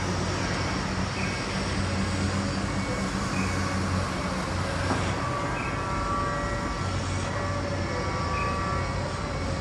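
Steady rumble of passing vehicles, with thin high whining tones that come and go every couple of seconds.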